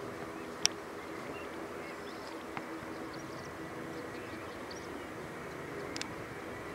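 An Airbus A320 landing, its jet engines giving a steady drone with a faint high whine. A single sharp click sounds about half a second in.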